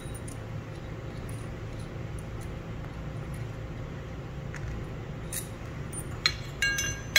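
Small steel bolts, nuts and washers being handled and set down on a concrete floor: a few faint clicks, then a quick run of sharp metallic clinks with a short ring near the end, over a steady low hum.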